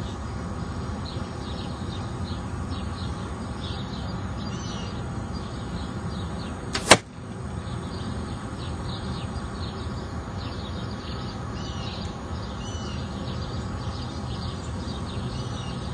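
A single arrow shot: one sharp crack about seven seconds in, just after a brief swell of sound. Around it is steady outdoor background noise with birds chirping.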